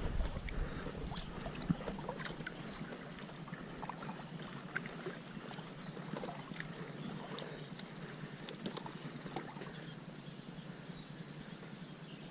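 Kayak being paddled across calm water: faint paddle splashes and drips with scattered small clicks.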